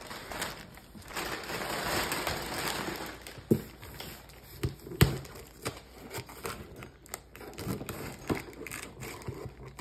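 Corrugated cardboard box being pulled open by hand, packing tape and flaps ripping and crinkling, followed by scattered sharp knocks and clicks against the box, the loudest about halfway through, as scissors are brought to the tape near the end.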